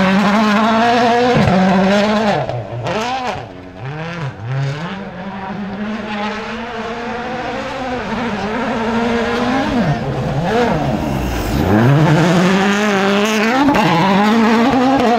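Rally cars' turbocharged four-cylinder engines at high revs on a loose gravel stage. The pitch climbs and drops with gear changes and lifts, with several quick blips of the throttle a few seconds in and one long rise in revs near the end.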